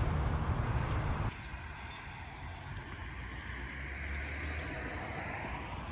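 Steady outdoor rushing noise with a low rumble, dropping abruptly about a second in and then carrying on more quietly.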